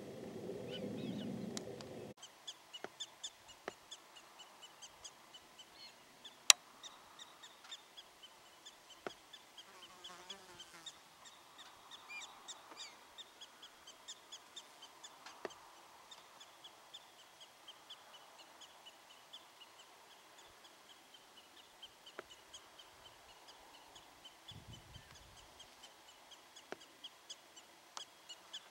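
Black-tailed prairie dogs chirping: short high barks repeated over and over, a few every second. A louder low rushing noise fills the first two seconds and cuts off abruptly.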